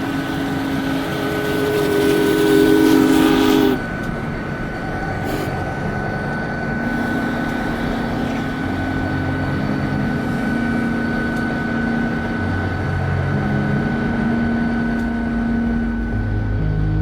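Train horn sounding a steady chord for a few seconds and cutting off sharply about four seconds in, followed by the steady rumble of a train running on the rails.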